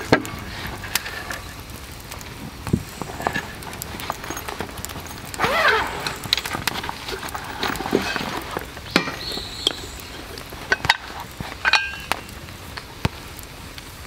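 Handling noise from a hot sandwich maker being taken out of its fabric case and opened: scattered clicks and light metal knocks, with a longer scratchy rustle of the case about halfway through.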